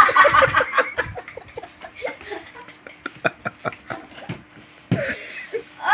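Laughter in short, rapid bursts for about the first second, then a quieter stretch with scattered light taps and knocks. Right at the end a boy starts a loud, drawn-out cry as his leg is rubbed.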